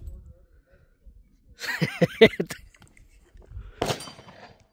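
A person's wordless vocal sound, about a second long, near the middle, followed by a shorter burst of noise a couple of seconds later.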